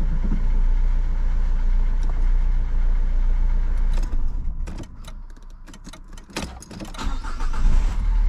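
Renault 1.5 dCi diesel engine idling steadily after a timing-belt change, left running to warm up for bleeding air from the cooling system. About halfway through, the running sound drops away for around two seconds amid a string of sharp clicks, then comes back loud near the end.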